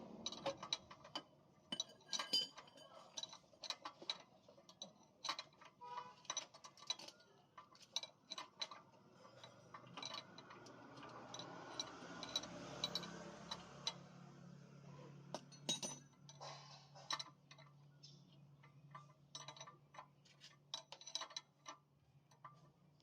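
Metal tools and parts clinking and tapping irregularly, many short sharp clicks with a slight ring, typical of hands-on work on a car's CV joint. A faint steady low hum comes in about ten seconds in.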